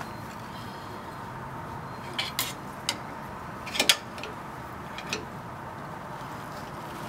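Metal hand tool clinking and knocking against the shock absorber's lower mount bracket on a Jeep Wrangler JK, a few irregular sharp strikes with the loudest, a quick double clink, about four seconds in.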